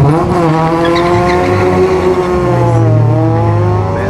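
Renault Clio race car launching hard from a standstill and accelerating away. The engine note jumps up at the start, holds high, then dips about three seconds in and climbs again.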